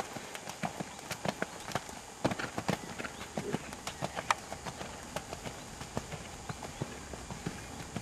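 Hoofbeats of a ridden bay gelding moving around a sand arena: a steady run of dull thuds, a few every second.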